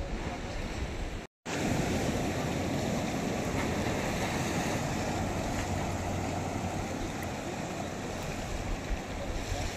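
Steady sea surf washing in the distance, with wind blowing on the microphone. The sound cuts out completely for a moment about a second and a half in, then carries on slightly louder.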